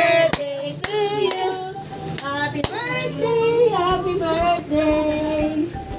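Several excited voices at once, high-pitched, some notes drawn out, with a few sharp hand claps in the first few seconds.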